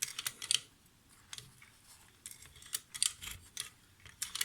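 Pre-war Casige toy sewing machine stitching, its needle and chain-stitch mechanism giving quick, light, irregular clicks.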